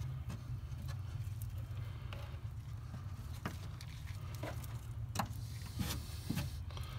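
Wooden stir stick dabbing and scraping thickened epoxy and fiberglass into place around a PVC drain tube in a fiberglass boat hull, giving scattered light taps and clicks over a steady low hum.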